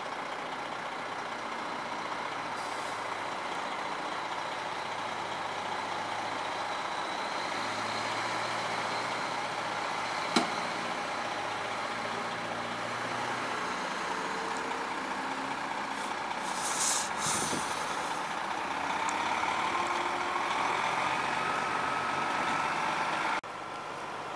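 Fire rescue truck's diesel engine idling steadily. A single sharp click comes about ten seconds in, and a short double hiss of air, like an air brake, about seventeen seconds in. A slowly rising whine follows near the end.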